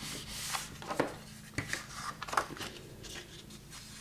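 Scored 65 lb cardstock being folded and creased by hand: a string of short papery rustles and crisp creasing clicks.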